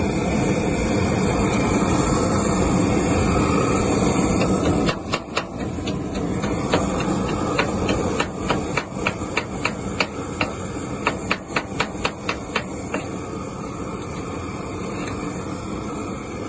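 Stick welding on a steel sleigh frame: the arc crackles and hisses steadily for about five seconds, then stops. It is followed by a run of sharp metal taps, two or three a second, as slag is knocked off the fresh weld, ending a few seconds before the end.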